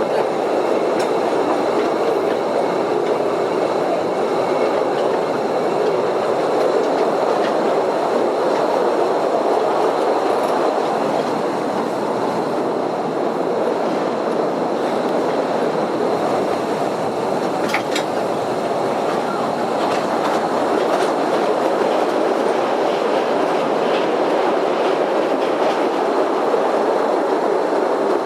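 Postojna Cave tourist train running steadily along its narrow track: a continuous rumble and rattle of the wheels on the rails, with a few brief sharp clicks, one of them clearest about eighteen seconds in.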